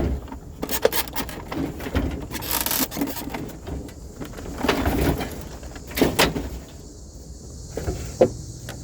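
Irregular knocks, clunks and scraping of hard objects being handled and shifted, with a steady low hum underneath.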